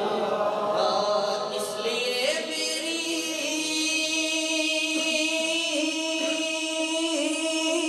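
Man singing a devotional naat into a microphone, stepping up in pitch about two seconds in and then holding one long, drawn-out note.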